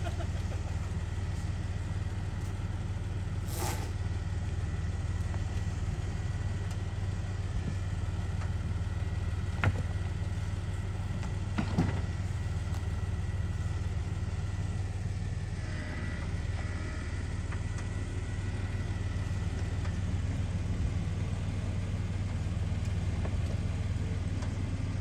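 Jeep engine running steadily at low revs as it crawls up a rocky slope. Two sharp knocks stand out, about ten and twelve seconds in.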